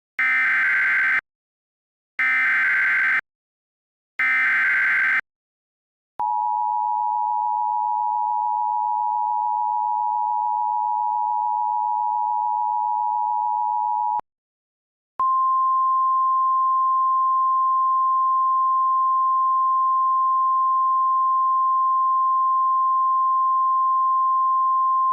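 Emergency Alert System tones. First come three roughly one-second bursts of the SAME header's screeching data tones, about a second apart. Then the two-tone EAS attention signal holds steady for about eight seconds, and after a one-second gap a single steady NOAA Weather Radio alert tone sounds for about ten seconds, signalling a weather warning.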